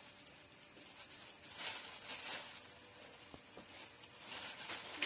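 Faint rustling of a plastic carrier bag, with soft pattering as handfuls of cow manure are scooped from a bucket and dropped into it.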